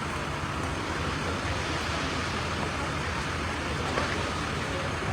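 Steady outdoor background noise, like road traffic with street ambience.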